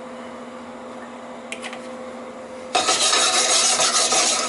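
Stainless steel saucepan of diced onions in olive oil shaken back and forth on a gas stove's grate: a loud rasping scrape of metal on the grate with the onions tossing, starting a little under three seconds in and lasting about two seconds before stopping abruptly.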